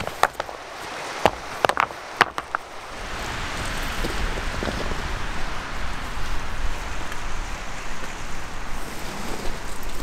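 Stones knocking together as they are set into a fire ring: several sharp clacks in the first couple of seconds. Then a steady rush of strong wind through the forest, with a low rumble of gusts on the microphone, growing louder.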